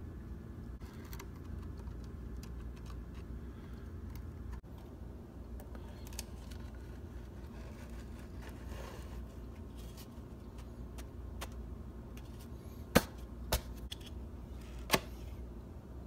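Handling noises as a ram's horn sheath is fitted back onto the skull's horn core: scattered small clicks and rubbing, then three sharp knocks about thirteen to fifteen seconds in. A steady low hum runs underneath.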